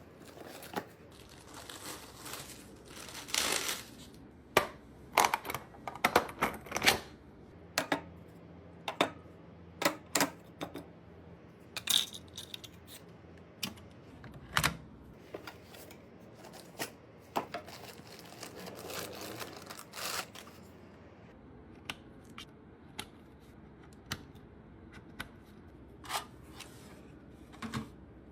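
Computer parts being handled and fitted during PC assembly: irregular sharp clicks, taps and knocks, with a couple of longer stretches of rustling or scraping.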